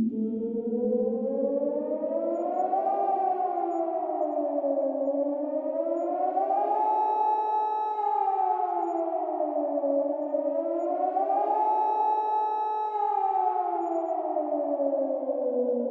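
Civil defense siren sounding a nuclear attack warning: a steady wail whose pitch rises and falls about every four to five seconds, holding briefly at the top of each rise. Two tones sound together as a chord.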